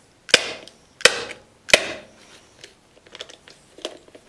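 Three sharp metal strikes about two-thirds of a second apart: the point of a pair of tin snips being stabbed into the steel canister of a crushed spin-on oil filter to spear a starting hole, each blow ringing briefly. A few faint clicks of the snips follow near the end.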